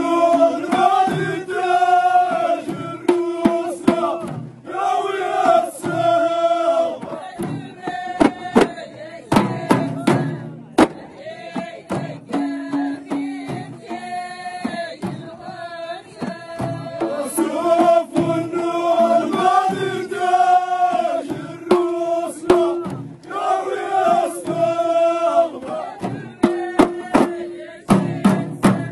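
Amazigh Ahidous: a line of men chanting together while striking bendir frame drums. The drum strikes are sharp, and come in quick runs twice, about a third of the way in and near the end.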